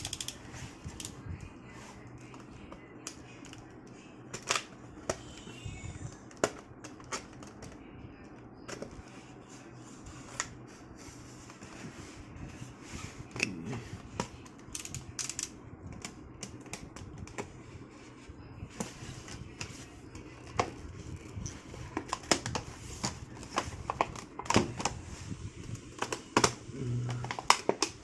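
Tool packaging being opened and handled: irregular clicks, taps and crackles, with a faint steady hum underneath.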